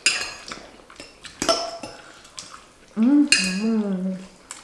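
Metal forks clinking against the pasta bowls, two sharp ringing clinks at the start and about a second and a half in. About three seconds in comes a hummed "mmm" of a person eating, lasting just over a second.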